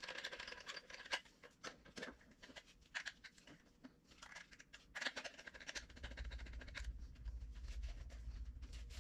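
Light clicks and scratches of an action-camera mount being handled and fitted by hand, with a low rumble that comes in about six seconds in.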